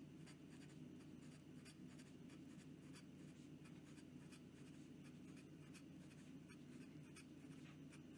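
Fountain pen nib scratching faintly across lined notebook paper in quick, repeated strokes, over a low steady hum.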